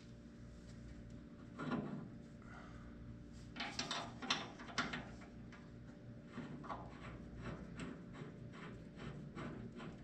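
Brake pedal linkage being fitted back on by hand: scattered light clicks, rattles and rubs of the parts going together, the busiest stretch about four to five seconds in, over a steady low background hum.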